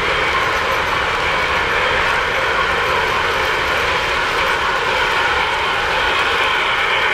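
3-rail O-scale model trains running on the track: a steady running noise of wheels and motors as a hopper freight train rolls past and a model steam locomotive comes round the curve.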